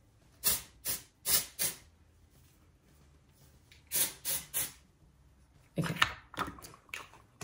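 Oribe dry texturizing spray hissing from an aerosol can in short bursts: four quick sprays in the first two seconds, then three more about four seconds in. Near the end comes a short cluster of rubbing and knocking sounds, the loudest moment.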